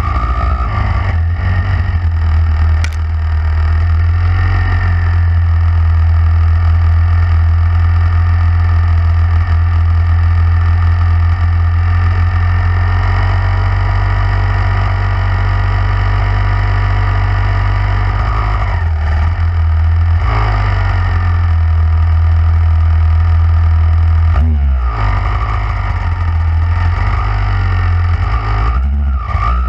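Dirt bike engine running under throttle along a rough trail, heard from a camera on the bike, with a heavy low rumble. The revs drop and pick up again a few times in the second half.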